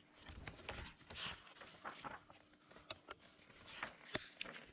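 Pages of a thick paperback book being turned by hand: paper rustling and swishing, broken by several sharp flaps and taps, the sharpest a little after four seconds in.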